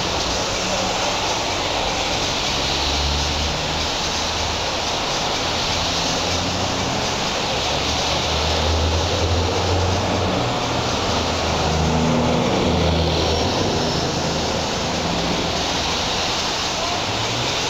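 Steady street noise: a constant hiss with an uneven low rumble underneath.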